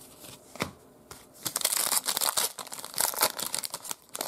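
Foil trading-card pack wrapper being torn open and crinkled by hand: a few light crackles, then dense, continuous crackling from about a second and a half in.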